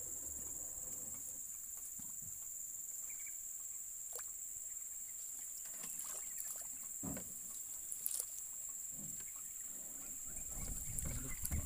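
Occasional small splashes and knocks as hands and a wire-mesh fish trap are worked in river water against the side of a wooden boat, over a steady high-pitched insect drone.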